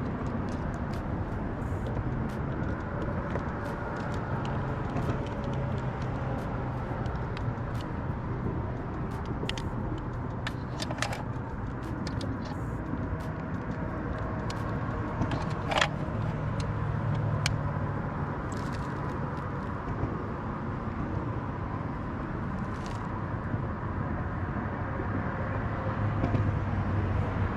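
Steady low engine and road rumble, as in a moving car, with scattered light clicks and rattles.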